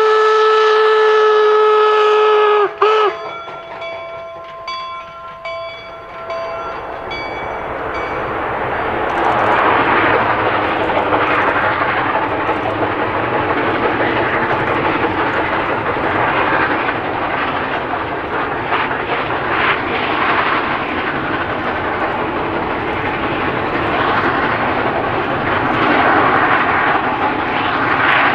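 Union Pacific No. 119, a 4-4-0 steam locomotive, blows one long whistle blast and then a short toot. Its bell then rings about twice a second. From about eight seconds in, the noise of the locomotive moving off builds up: steam exhaust and rolling wheels.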